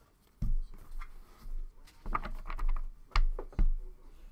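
Irregular clicks and light knocks of hands working at a desk, several in quick succession around the middle, some with a dull thump.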